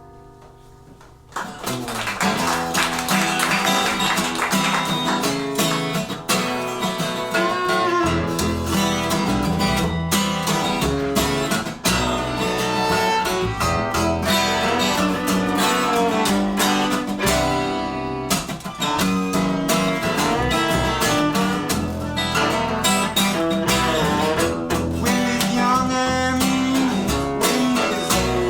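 A fading note, then about a second in a live acoustic band starts an instrumental intro: driving, rhythmic strummed acoustic guitar with other strings beneath.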